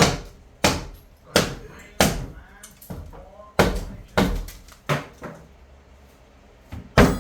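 Hammer blows knocking out a bathroom wall during demolition: sharp impacts at irregular intervals. Four come in quick succession about two-thirds of a second apart, then three more after a short pause, and a last, loudest blow near the end.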